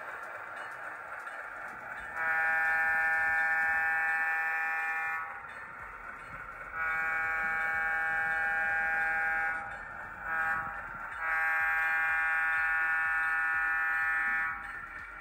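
Sampled diesel air horn from an HO scale model locomotive's sound decoder, blown long, long, short, long: the standard grade-crossing signal. A steady running sound lies under the blasts.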